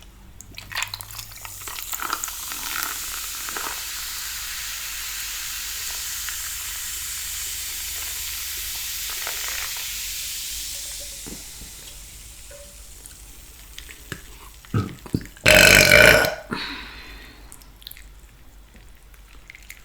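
Carbonated soda fizzing, a steady hiss that builds over the first couple of seconds, holds for several seconds and fades away. A loud burp follows a few seconds before the end.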